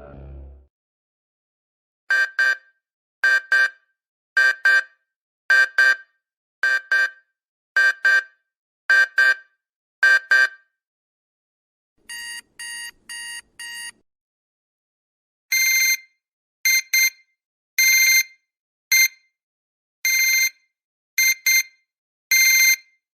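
Digital alarm clock beeping, three different patterns in turn: a high double beep repeated about once a second, then four quicker, quieter beeps, then a slightly higher-pitched beeping again about once a second.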